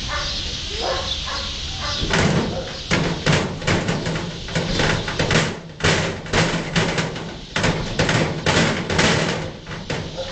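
Metal cage bars banging and rattling as a lion pushes and strikes at them with its paws: a fast, irregular run of loud clangs starting about two seconds in and stopping near the end.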